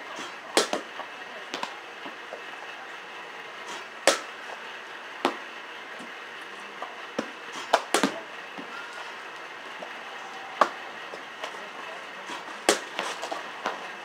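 Sharp knocks of a softball bat meeting pitched softballs in bunts and full swings, every few seconds, with softer knocks of balls landing in between.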